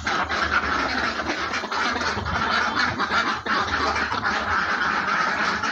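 Steady din of laying ducks quacking and chattering in their pen, with straw rustling and light clicks as duck eggs are picked up and set into a plastic basin.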